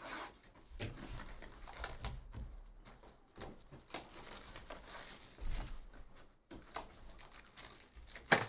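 Plastic wrapping on a box of trading cards crinkling and tearing as the box is opened, with irregular crackles and small clicks, and one sharp click near the end.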